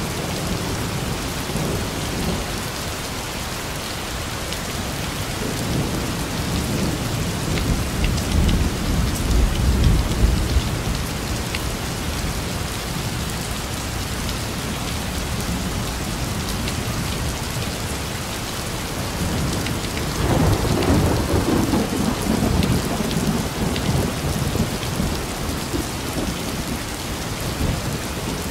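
Heavy rain falling steadily, with thunder rumbling low about eight seconds in and again from about twenty seconds in.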